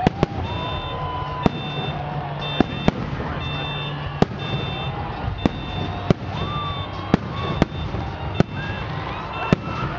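Fireworks display: about a dozen sharp bangs of shells bursting at irregular intervals, over a regular on-off high-pitched beeping.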